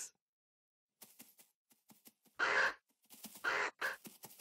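Cartoon ostrich squawking: harsh, croaky calls about two and a half and three and a half seconds in, among faint scattered taps.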